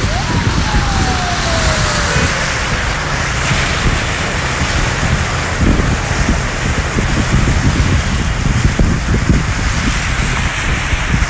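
Steady rain with wind buffeting the microphone, over a low rumble. A siren's wail falls in pitch during the first few seconds and then fades under the rain.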